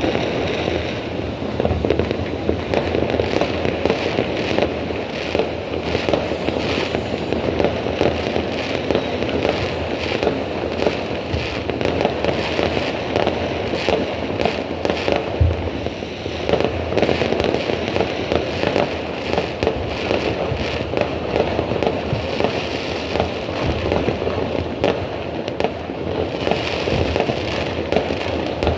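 Fireworks going off without a pause: a dense, continuous stream of pops, bangs and crackles.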